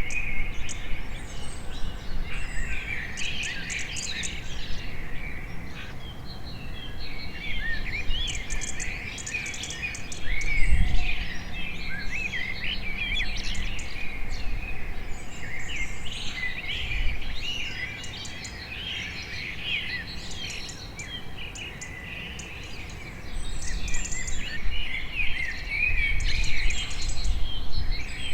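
A dense chorus of many small birds chirping and twittering over one another, with a low rumble swelling at times underneath.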